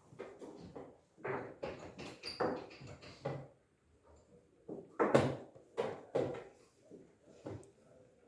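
Chess pieces being moved and set down on the board: a quick, irregular run of knocks and clicks, the sharpest about five seconds in.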